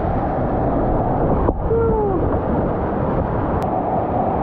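Whitewater rapids rushing and churning loudly around a kayak at water level. About a second and a half in, the noise briefly dips and a short warbling tone rises and falls.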